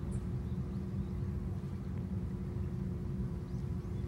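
Steady low engine rumble with a faint constant hum, from a distant motor.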